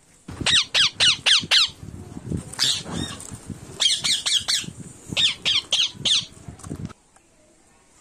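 Indian ringneck parakeet (rose-ringed parakeet) giving shrill squawks in three quick bursts of about five calls each, every call falling sharply in pitch. The calling stops abruptly about seven seconds in.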